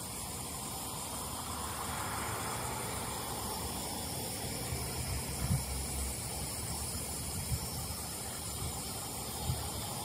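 Steady outdoor background hiss, with a few soft low thumps.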